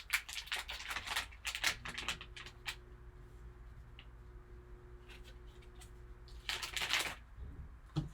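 Sealed card pack being handled and torn open: bursts of wrapper crinkling and tearing in the first two seconds and again around seven seconds in, over a faint steady hum.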